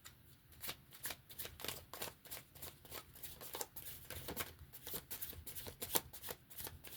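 Oracle cards being shuffled by hand: an irregular run of quick, light card flicks and slaps, several a second.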